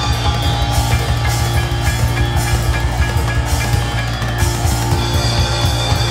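Live pop band playing an instrumental passage without vocals: a drum kit keeps a busy, steady beat over bass, keyboards and acoustic guitar.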